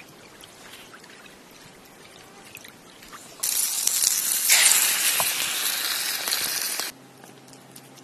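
Sliced chorizo and onion sizzling in a frying pan over a wood fire: a loud, even hiss that starts suddenly about three and a half seconds in and stops abruptly near seven seconds. Before it there is only faint ambience with a few small ticks.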